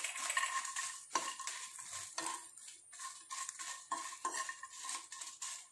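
Steel spoon stirring dry red chillies and cashews in a non-stick frying pan, with irregular clinks and scrapes of the spoon against the pan.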